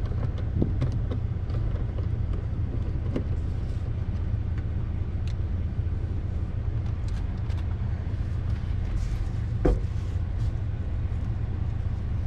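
Screwdriver backing out the screws of a car sun visor's mounting bracket: faint scattered clicks and scrapes, with a sharper knock about ten seconds in as the visor comes loose, over a steady low rumble.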